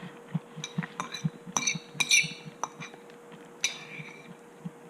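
Metal cutlery clinking against a dish during a meal: a handful of short, ringing clinks, bunched together about a second and a half in and again near the end.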